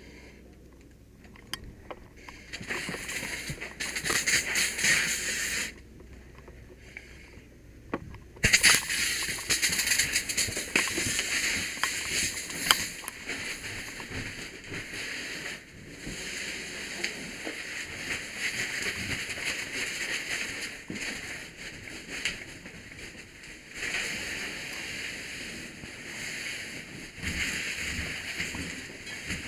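Fire hose nozzle spraying water to knock down a room fire: a hissing, splashing stream that opens about two seconds in, shuts off for a couple of seconds, then flows again from about eight seconds on with short pauses.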